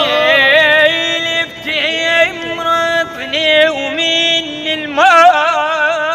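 A man singing an Iraqi-style melody: long held notes broken by quick, wavering ornamented runs, with a fresh, louder phrase starting about five seconds in.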